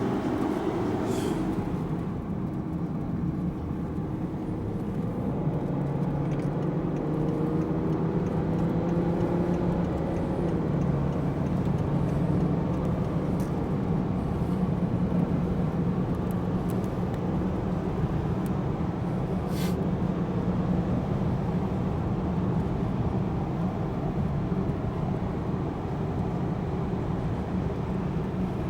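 Car engine and road noise while driving: a steady low drone whose engine note climbs a little and then drops back about ten seconds in.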